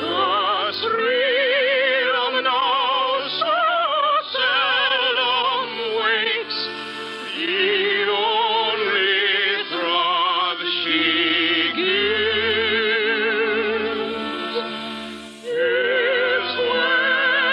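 Operatic singing with a wide vibrato in long held phrases over instrumental accompaniment, a song from a 1950s radio operetta. The singing breaks off briefly about 15 seconds in, then resumes.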